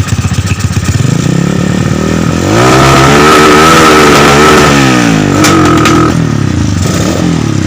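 Honda Tiger single-cylinder four-stroke motorcycle engine revved up from idle, held at high revs for a couple of seconds, then dropping back. It is blipped once more with a couple of sharp pops, then settles to a slow, uneven idle. The engine is one that has been hard to start and coughs at high revs.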